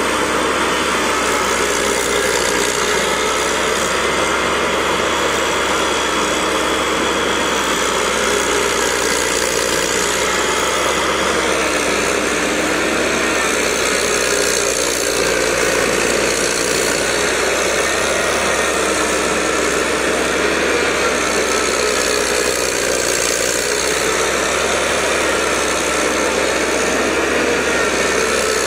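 Engine of a tracked swamp machine running steadily under load in mud, its pitch rising and falling slightly.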